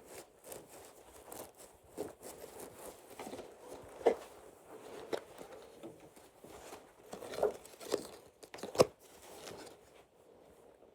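Small plush toy squeezed and handled, its bead-pellet filling crunching and rustling in irregular faint bursts with a few sharper clicks, fading out near the end.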